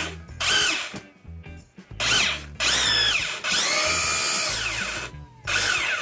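Electric rotary hammer drill run in several short trigger pulls, its motor speeding up and winding down each time, with the longest run about two seconds in the middle.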